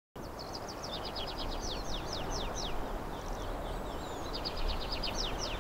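A songbird singing two phrases of quick, repeated downslurred whistled notes: one shortly after the start and another beginning about a second and a half after the first ends. Under the song is a steady outdoor background hiss.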